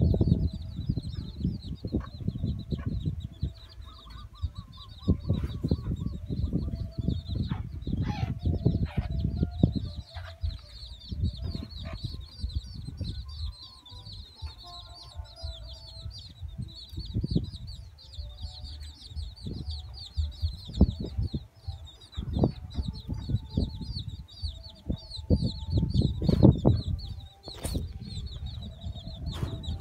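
A brood of chicks peeping all the time in quick high chirps, with a hen clucking in short lower calls now and then. Low bumps and rumbles come and go throughout, heaviest near the end.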